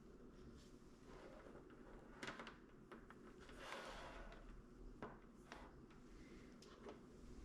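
Near silence: room tone with a few faint clicks and a soft rustle.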